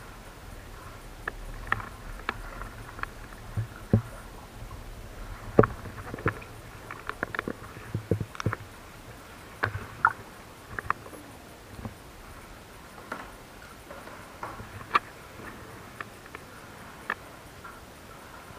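Kayak being paddled inside a sea cave: irregular sharp clicks and knocks of the paddle and water against the hull, sometimes several in quick succession, over a low steady background.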